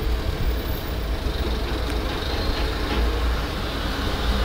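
A steady low rumble of background noise with a few faint light clicks about two to three seconds in.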